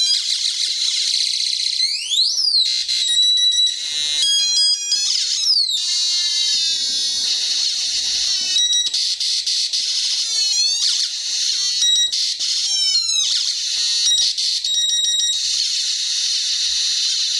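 Cheap electronic sound-effects kit sounding continuously, cycling through synthetic effects: stepped beeping tones, a siren-like rise and fall about two seconds in, quick falling and rising chirps, and bursts of beeps.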